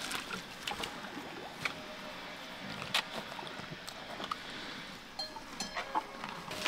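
Water buffalo wading in a shallow muddy pool, their hooves sloshing and splashing in the water, with scattered light clicks and knocks.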